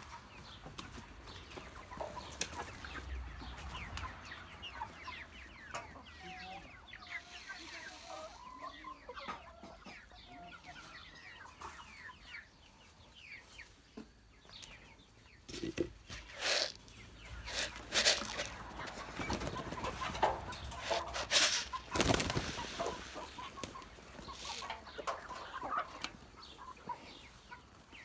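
A flock of domestic hens clucking on and off. In the second half there are several louder, sharp noises.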